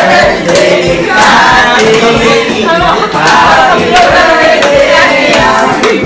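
Music with singing voices and a steady, sharp beat about two to three times a second.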